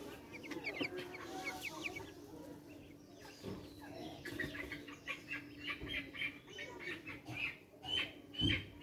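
Young Brahma chickens peeping: a few scattered high cheeps at first, then a quick run of repeated peeps, several a second, from about four seconds in.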